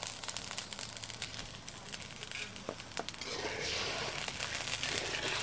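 Sugar poured from a steel bowl into water in an aluminium wok, heard as a fine scatter of small ticks from the falling grains. About three seconds in, a metal spatula starts stirring the sugar and water, swishing it round the wok.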